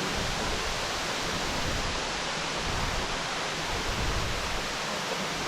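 Waterfall rushing steadily, water pouring and splashing in an even hiss.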